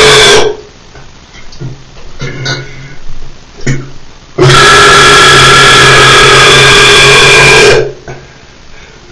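Loud, long belches: the end of one cuts off about half a second in, and another, lasting about three and a half seconds, starts about halfway through. Between them are a few small clicks over a faint low hum.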